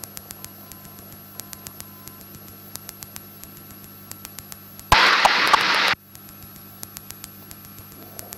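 Cockpit intercom and radio feed with a steady electrical hum and frequent sharp clicks of interference. About five seconds in comes a one-second burst of radio static hiss that cuts off abruptly.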